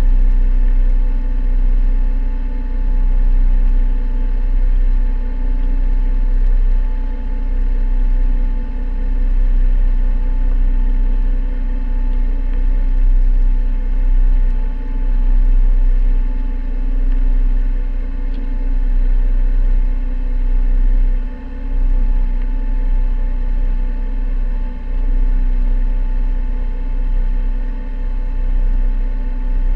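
A sailboat's auxiliary engine running steadily while motoring. A low wind rumble on the microphone rises and falls over it.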